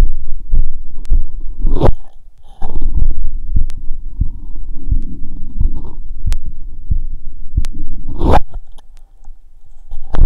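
Heart sounds through a stethoscope: quick, regular low thumps about twice a second, a heart rate raised by a workout. A loud rubbing rustle comes twice, about two seconds in and again near the end.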